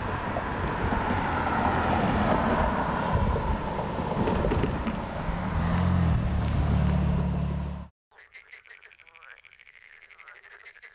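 Loud, steady rushing noise, joined by a low droning hum about five seconds in. About eight seconds in it cuts off abruptly to a quiet passage of frogs calling in a fast pulsing chorus.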